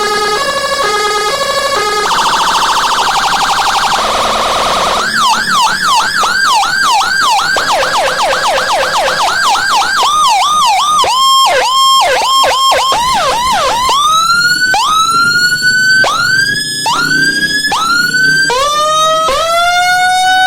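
Custom Whelen HHS 60-watt police-escort siren cycling through several of its 24 tones: a stepped two-tone hi-lo, then a fast warble, then a rapid yelp sweeping up and down, then repeated rising whoops.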